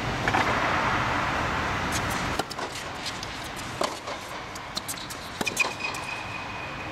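Tennis ball struck by rackets in a rally: a handful of sharp pops of ball on strings and bounces, some nearer and louder, others faint from the far end of the court. A steady background rush drops away about two and a half seconds in.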